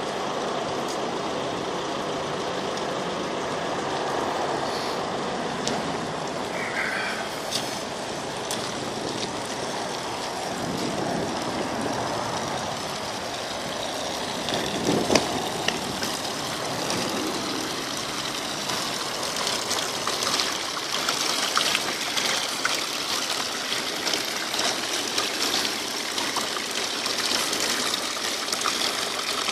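Fountain water jets splashing into a stone basin: a steady hiss of falling water. The splashing grows crisper and busier in the last ten seconds or so.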